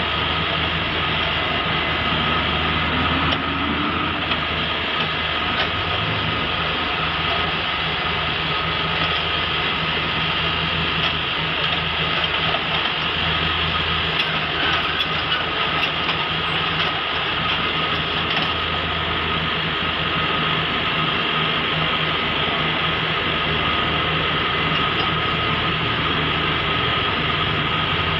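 Kubota mini excavator's diesel engine running steadily under load as the bucket spreads crushed coral rock, with a steady high whine over the engine.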